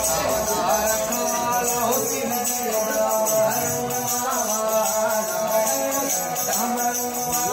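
Folk melody played on a ravanhatha, a bowed string instrument, with sliding notes over a steady held note.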